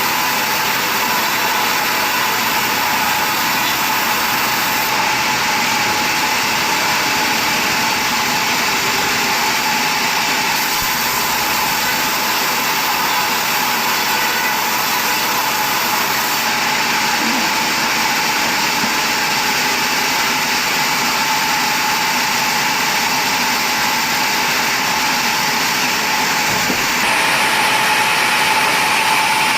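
Sawmill machinery running with a steady drone and a constant high hum, its level unchanging throughout.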